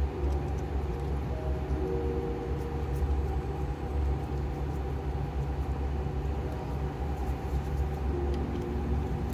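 Steady low mechanical rumble, with faint wavering hum tones above it and a few light clicks.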